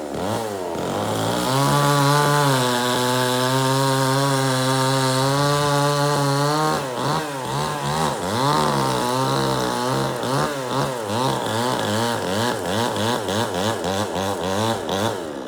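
Chainsaw engine revving up and held at full throttle for several seconds, then the throttle is blipped up and down quickly, about twice a second, before it drops back near the end.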